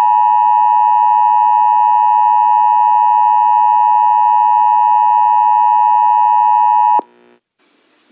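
Loud, steady single electronic tone of about 1 kHz, an emergency-alert attention tone, held unchanged and cutting off abruptly about seven seconds in; faint hiss follows.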